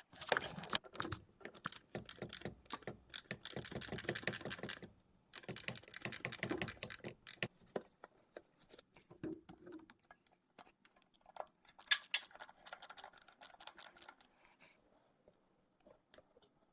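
Sped-up hand-tool work in a car's engine bay while the air intake is taken off: rapid, dense clicking and clattering in several stretches, which thins out and falls almost quiet in the last couple of seconds.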